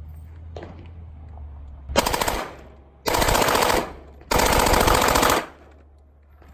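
Three bursts of fully automatic gunfire from a gun concealed in a briefcase, fired from the hip: a short burst about two seconds in, then two longer ones, the last just over a second long.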